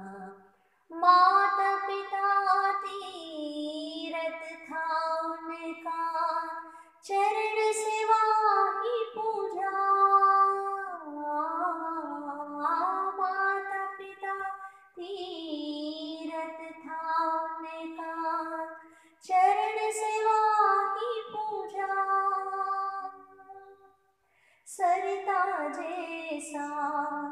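A woman singing a Jain devotional song unaccompanied, in melodic phrases with held, gliding notes and short breaks between phrases.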